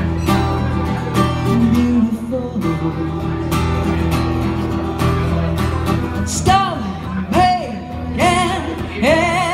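Solo acoustic guitar strummed in steady chords, with a woman's voice coming in about six seconds in, singing long held notes with vibrato over the guitar.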